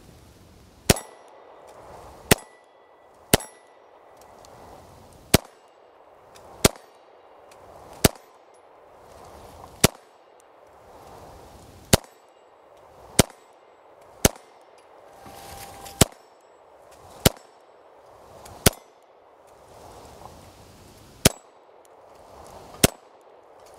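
Unsuppressed Beretta M9A3 9mm pistol fired at a slow, uneven pace, about fifteen shots spaced one to two seconds apart. Each shot is followed by the clang of a steel plate target ringing.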